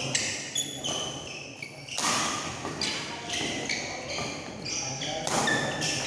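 Badminton rally in a large hall: rackets striking the shuttlecock and players' shoes squeaking on the court, several short sharp sounds a second.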